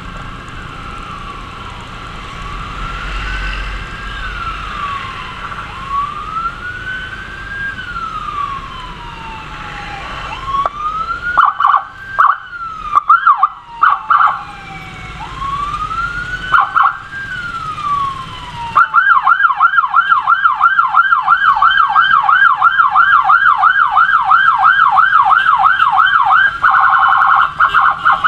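Electronic emergency siren used to clear traffic for an ambulance. It starts as a slow wail rising and falling about every four seconds, broken by a few short chirps about halfway through. About two-thirds of the way in it switches to a fast yelp of about four cycles a second, and near the end to a still faster warble.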